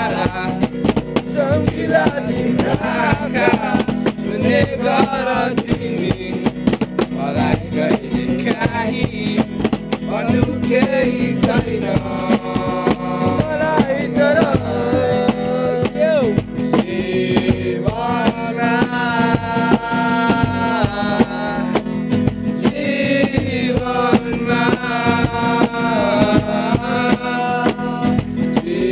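A song with singing over plucked guitar and a steady drum beat.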